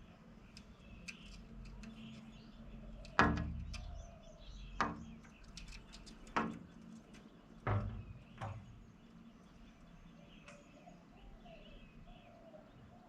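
Birds chirping faintly in the background, broken by five sharp knocks in the middle few seconds, the loudest sounds here.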